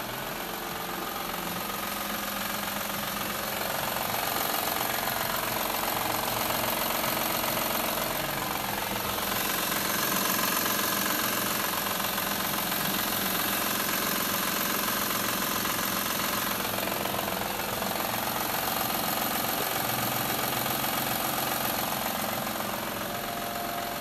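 Honda 3.5 L VTEC V6 engine running steadily with a rattle from the timing belt end. The rattle is most likely a failed timing belt tensioner letting the belt run slack and flop around.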